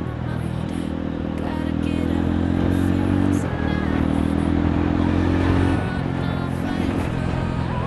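Yezdi Roadster's single-cylinder engine running through an exhaust with its dB killers removed, ridden through a tunnel at a steady engine speed. The note dips briefly about three and a half seconds in and again near six seconds, then picks up.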